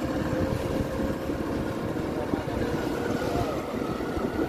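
Small motorboat's engine running steadily while the boat is under way on open sea, mixed with wind and water noise.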